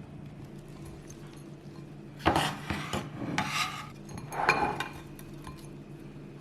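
Kitchen utensil scraping and clinking against cookware, three short strokes.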